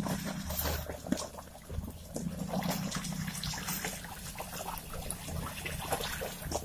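Mitsubishi Colt T120SS pickup driving through water-filled mud ruts: the engine runs with a steady low hum while the tyres slosh and splash through the muddy water.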